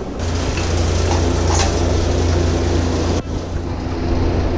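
Steady low hum of running machinery with a constant rushing noise over it, dipping briefly about three seconds in.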